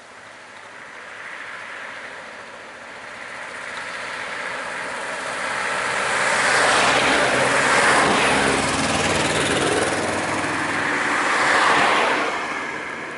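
Motor vehicles driving past on a road, their engine and tyre noise swelling as they come close. A van passing closest is loudest about halfway through, and another vehicle passes near the end.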